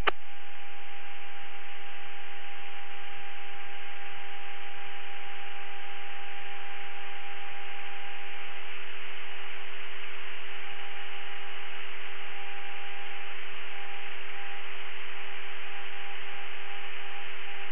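Steady hiss of an open radio channel with no one transmitting, its sound narrow like a radio link, with a constant low hum tone under it and a fainter higher tone that flickers in and out in the second half.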